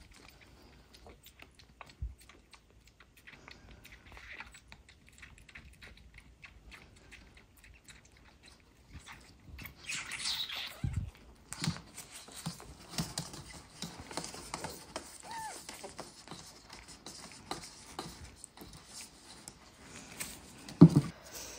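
A kitten suckling from a feeding bottle: a string of small wet clicks and smacks as it feeds, with rubber gloves rustling now and then. A short loud thump near the end.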